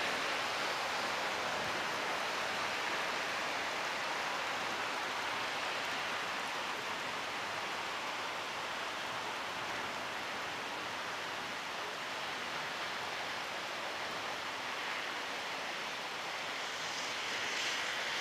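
Heavy thunderstorm rain falling in a steady hiss. Near the end, a car's tyres swish on the wet road as it passes.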